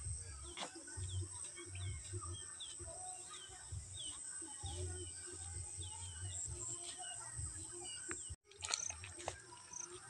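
Birds chirping repeatedly, short high chirps about twice a second, over a steady high-pitched insect drone, with wind rumbling on the microphone. The sound cuts out for a moment near the end.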